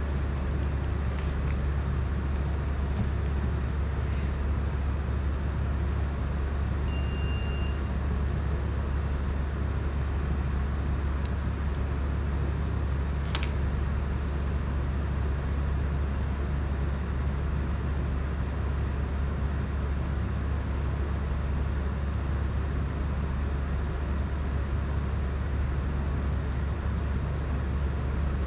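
A steady low hum with a constant rush of machine-like noise, such as a room fan or air conditioner makes, with a few faint clicks and a short high beep about seven seconds in.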